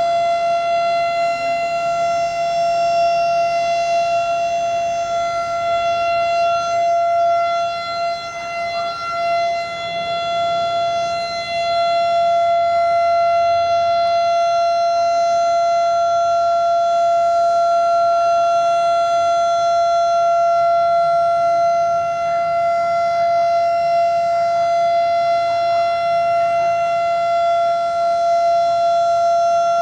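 A loud, continuous alarm tone held on one steady high pitch with a stack of overtones, never rising or falling, dipping briefly in loudness about a third of the way in.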